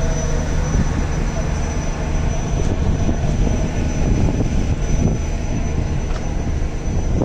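A ship's engines droning steadily, heard from the open deck under a broad wash of wind and water noise.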